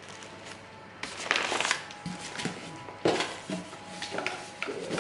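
Packaging being handled and opened: irregular rustling with sharp clicks and crinkles, starting about a second in.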